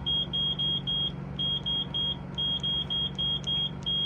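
Automatic Products 6600 snack vending machine keypad beeping: about fourteen short high beeps of one pitch, some in quick runs. Each is a press of the selection button that steps the price up in price-setting mode. A steady low hum runs underneath.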